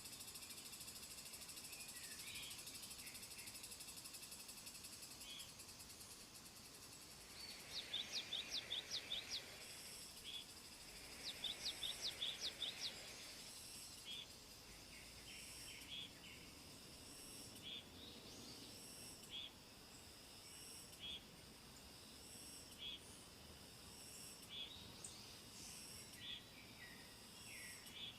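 Nature ambience: insects trill steadily and high, while birds give short scattered chirps. Twice, around 8 and 12 seconds in, a bird calls a quick series of about seven sharp repeated notes, the loudest sounds here.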